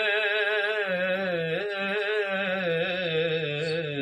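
A singer holds one long, wavering note of a Punjabi Sufi kalam, drawing out the word 'Eid' with ornamented vibrato. The note cuts off suddenly near the end.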